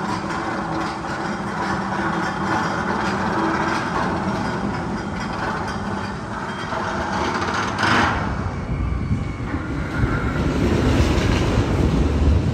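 Roller coaster train running along its track with a steady rumbling clatter; a sudden loud noise about eight seconds in, then a deeper rushing rumble.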